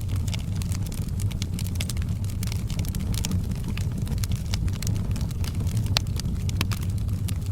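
Wood fire burning, with frequent small crackles and pops over a steady low rumble; one louder pop about six seconds in.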